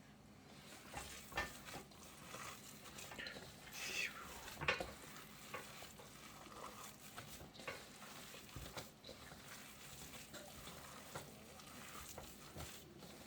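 A spoon stirring and scraping food in a pot or bowl, in irregular strokes with a few light clinks.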